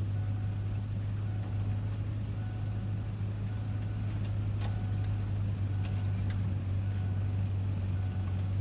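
A steady low hum, like an idling engine, with scattered light clicks and metallic jingles like keys being handled.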